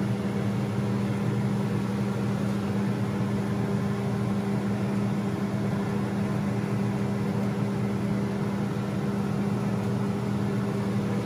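Steady hum of a fan motor over a soft, even hiss of garlic and onion frying in the grill pan.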